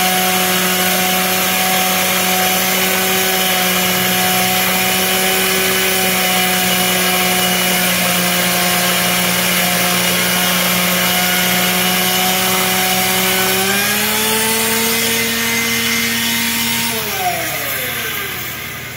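Pneumatic belt sander grinding and polishing a turning steel train axle journal: a steady whine over a hiss. About fourteen seconds in its pitch rises a little, and near the end it is shut off and winds down with a falling whine.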